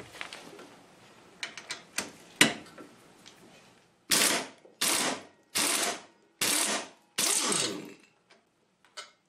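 Pneumatic impact wrench fired in five short bursts, about a second apart, on a stripped exhaust manifold bolt of an Onan engine, after a few light metal clicks as the socket is fitted.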